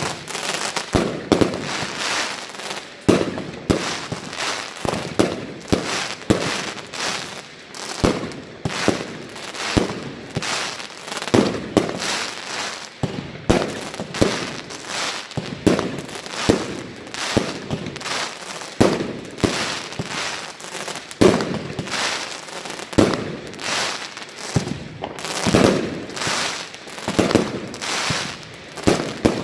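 Fireworks battery (cake) firing: a rapid, irregular string of shots and bursting bangs, several a second, with crackling between them.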